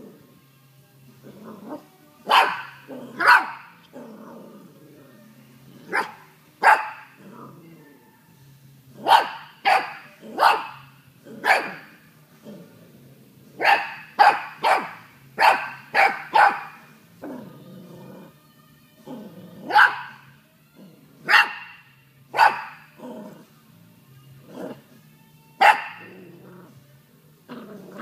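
Nine-week-old mini Australian Shepherd puppy barking in short, sharp, high yaps, singly and in quick runs of two to four. Low growls sit between some of the barks.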